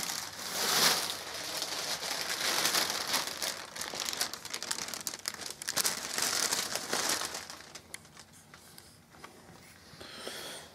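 Thin clear plastic bag crinkling and rustling as it is pulled up and off a flat-screen TV. The crinkling goes on for about seven seconds, then dies down to a few faint rustles.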